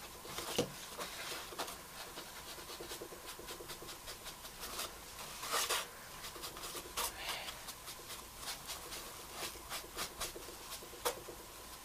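Soft rubbing and scratching as ink is worked onto the edges of a cut MDF ornament by hand, with small irregular ticks and a few slightly louder scratchy strokes.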